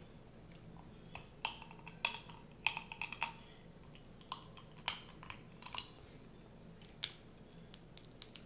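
Snow crab leg shells being cracked and snapped open by hand and teeth: a run of sharp, crisp cracks from about a second in to about six seconds, then two more lone snaps near the end.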